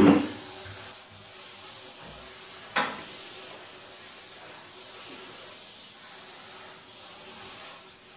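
Board duster rubbing across a chalkboard, wiping off chalk in a steady scrubbing, with one short louder sound about three seconds in.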